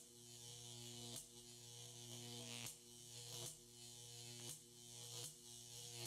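Faint, steady electrical hum and buzz of fluorescent tube lights, broken by short crackles about once a second as the tubes flicker on.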